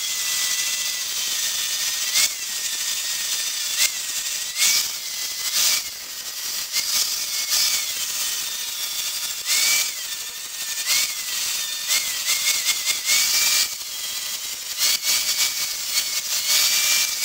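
Angle grinder with a 120-grit flap disc grinding a welded steel end cap smooth: a steady high motor whine under the hiss of the disc on the metal, the whine's pitch jumping up briefly every second or two.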